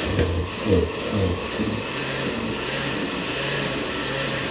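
Countertop blender running, puréeing green salsa with fresh cilantro; the motor's pitch wavers for the first couple of seconds, then settles into a steady hum.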